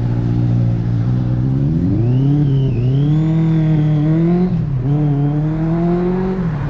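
Motorcycle engine idling, then revving as it pulls away and climbs through the gears, the pitch rising, dropping briefly at each shift, three times, and rising again.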